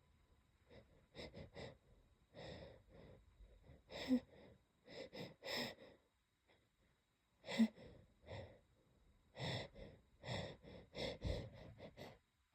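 A person's short, breathy sniffs and catching gasps, spaced irregularly, a few with a small catch in the throat, as a sneeze builds and is being held back.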